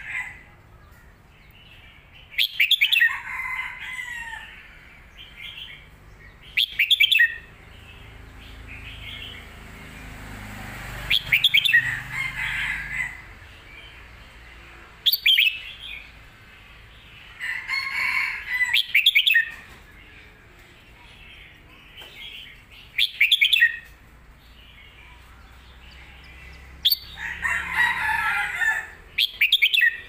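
Red-whiskered bulbul singing its short, loud song phrases, about seven in all, a few seconds apart with quieter gaps between.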